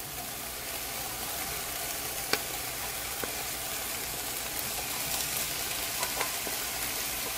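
Steady sizzling in a hot wok as diced zucchini, yellow squash and corn are scraped in from a plate with a wooden spatula, landing on frying chicken and onion. A sharp tap comes about two seconds in, and a couple of lighter knocks follow.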